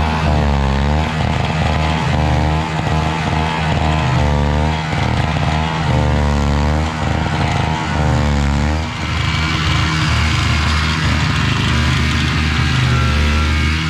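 Small gas snowblower engine running steadily under load, with a higher tone over it that wavers up and down every second or two.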